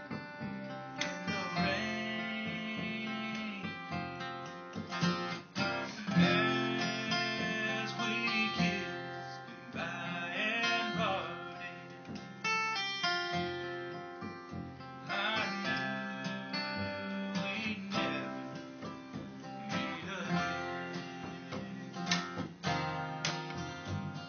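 Acoustic guitar strummed through an instrumental break, with a melody line of held notes that slide and bend in pitch every few seconds.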